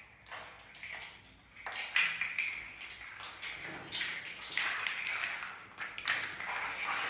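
A pet otter making a run of short, high-pitched squeaks and chirps, over and over.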